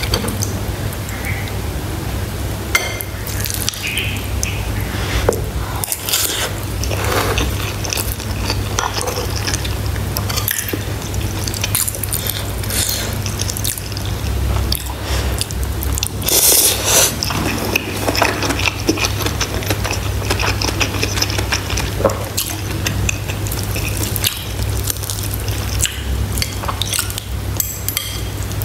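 Close-miked eating sounds: a metal spoon scooping through a bowl of pork bone soup, broth dripping and splashing, with scattered clicks and taps of the spoon and mouth sounds of eating, over a steady low hum.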